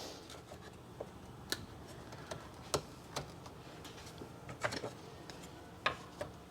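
Light, irregular clicks and taps of wooden beehive frame parts being handled and fitted together during gluing, about a dozen scattered over a few seconds.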